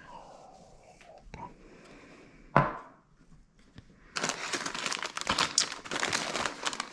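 A single sharp knock about two and a half seconds in, then plastic bags of dried chilies crinkling as they are picked up and handled.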